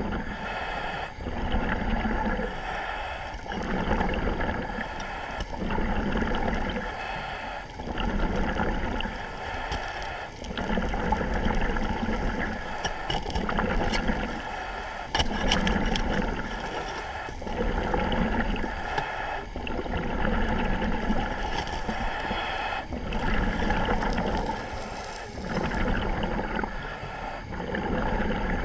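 A surface-supplied diver's breathing heard through the dive radio: a regular breath about every two seconds over a steady rush of air and water.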